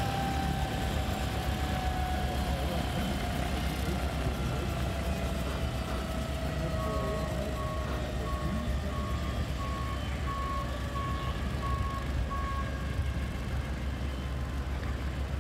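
Light turbine helicopter running on the ground: a loud low rotor rumble under a turbine whine that slowly falls in pitch, as the engine winds down. In the middle, a steady beeping tone sounds for about six seconds.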